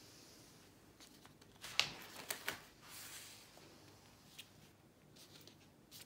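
Spiral-bound sketchbook page being turned by hand: soft paper rustling with a few light clicks and taps, loudest about two seconds in.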